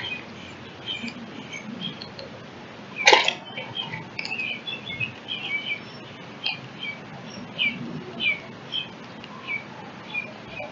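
Eastern bluebird chirping: short, high call notes repeated every half second or so, some sliding downward. About three seconds in, a single sharp knock, louder than the calls.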